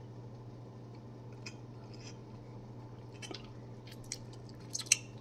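Soft gulps while drinking a slushy lemonade from a bottle, then wet lip smacks near the end as the bottle comes down, over a low steady hum.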